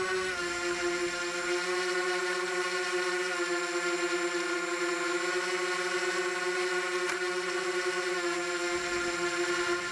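A small engine running at a steady high speed, a continuous buzzing drone that holds an even pitch with only slight wavering.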